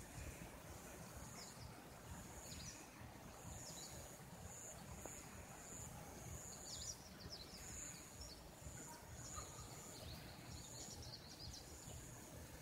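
Faint outdoor ambience: small birds chirping repeatedly in short, high, falling calls over a low steady rumble.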